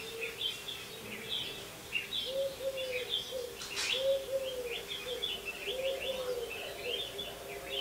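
Small birds chirping busily, with a pigeon cooing in a row of short, low, arched notes through the middle. A faint steady hum sits underneath, and there is one sharp click a little before the middle.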